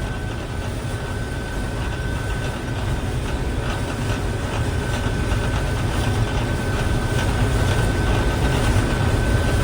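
Combine harvester running steadily while harvesting wheat, heard inside the cab: a low engine rumble with a thin steady whine above it, growing slightly louder over the last few seconds.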